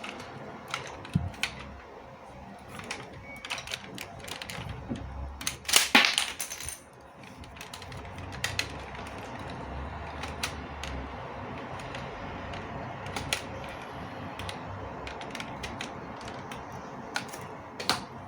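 Hard plastic LEGO Technic parts clicking and clattering as the rifle is handled, with a louder rattle of clicks about six seconds in.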